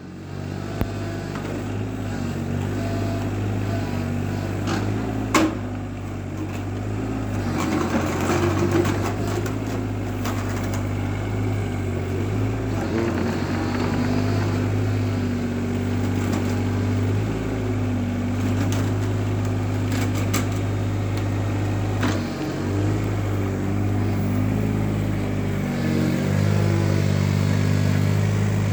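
Takeuchi TB215R mini excavator's diesel engine running steadily while the machine is unloaded, with a few sharp knocks and some metallic clatter along the way.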